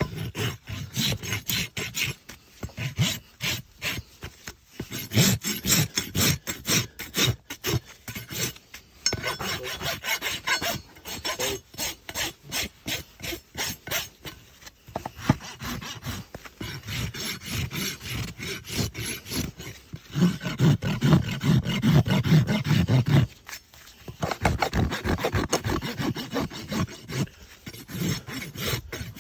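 Farrier's rasp filing a horse's hoof in quick, repeated back-and-forth strokes, with a few short pauses between runs of strokes.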